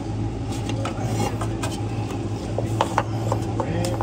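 Light metal clicks, knocks and scraping as parts of a short-throw shifter are handled and worked into place under a car, over a steady low hum.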